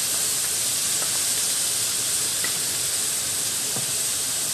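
Beef brisket chunks frying in hot oil in a frying pan, a steady sizzling hiss as oyster sauce is poured in.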